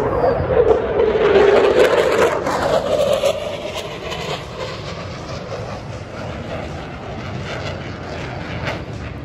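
Military jet passing overhead: loud jet engine noise with a steady tone, strongest for about the first three seconds, then fading to a distant rumble.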